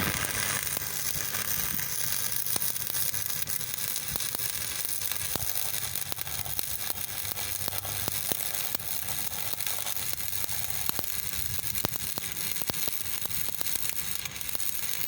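An electric welding arc crackling and sizzling steadily as a bead is laid. It strikes abruptly at the start and then runs on without a break.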